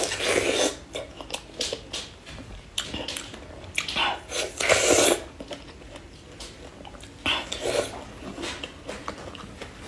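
Close-up mouth sounds of biting into and chewing fresh strawberries. Louder bites come at the start, again about four to five seconds in and about seven seconds in, with small smacking clicks of chewing between.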